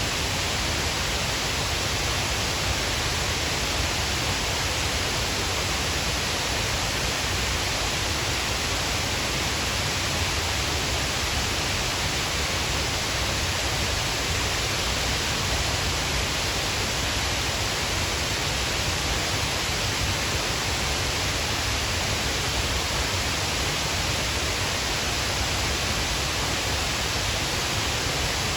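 Shiraito Falls, a waterfall: water falling and splashing in a steady, unbroken rush.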